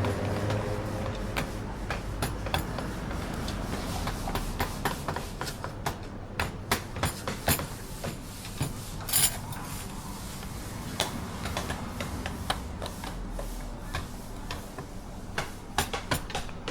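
Irregular sharp taps and knocks of hand tools working wood, over a steady low hum. An engine fades away in the first second or so, and a brief hiss sounds about nine seconds in.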